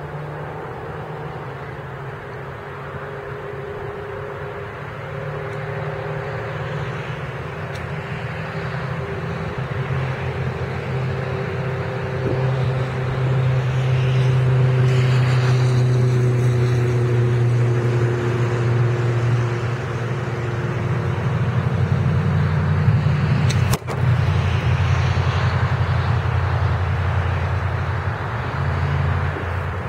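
Steady engine drone that slowly grows louder over about ten seconds and then eases, with a single sharp click about two-thirds of the way through.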